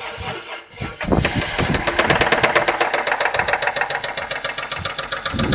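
Toyota 1JZ straight-six engine running with a rapid, even knocking, about ten knocks a second, which sets in about a second in. This is the extraneous knock the owner is asking about, still there after new spark plugs.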